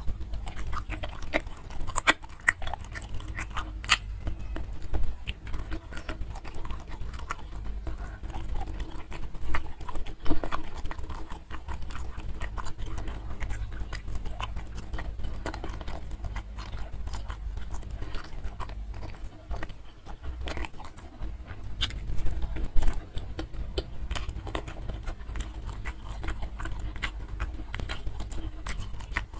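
A person chewing food, with many short clicks all through.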